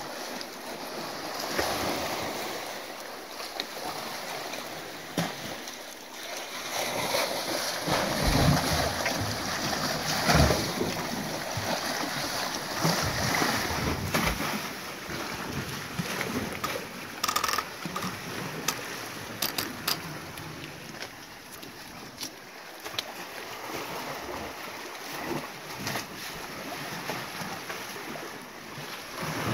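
Sea surf washing against rocks, with wind buffeting the microphone and louder surges of water. A few sharp clicks come about two thirds of the way through.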